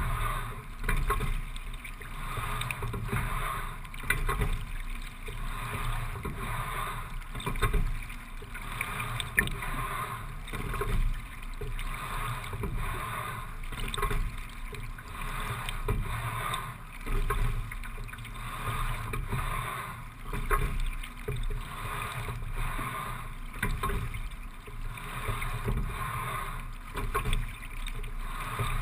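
A single rowing scull rowed at a steady low rate of about 17–18 strokes a minute. Water rushes along the hull and swells with each stroke, with short knocks from the oars and rigging, a stroke roughly every three and a half seconds.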